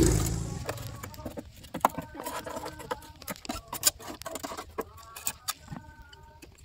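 A steel hand hoe scraping and knocking against a power tiller's engine casing: a run of uneven clicks and scrapes. A low rumble at the start fades out within the first second.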